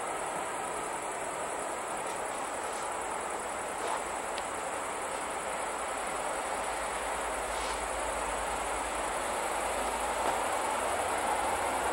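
Crickets chirping in a steady high trill while an approaching diesel train's rumble grows slowly louder towards the end.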